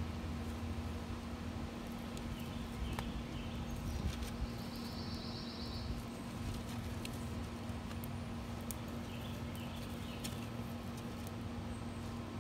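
Wood fire burning in a tin-can hobo stove under a pot of water coming up to the boil: a steady hiss and low rumble with scattered faint crackles. A short high trill sounds about five seconds in.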